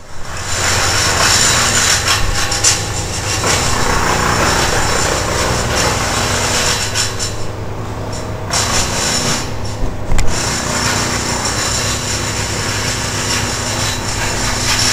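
Crane engine running steadily with a hum and a higher whine while the hook line is worked; the top end of the sound thins out briefly about halfway through.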